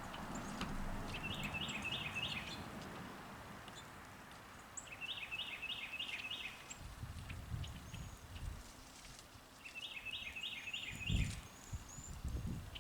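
A songbird repeats a short song of four or five quick, evenly spaced notes three times, about four seconds apart, with fainter high chirps from other small birds. Low bumps or rumbles come in the second half, the loudest about eleven seconds in.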